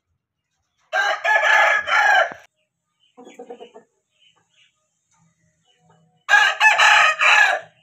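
Aseel rooster crowing twice, each crow about a second and a half long, the second about five seconds after the first. A short run of softer, rapid clucks comes between them.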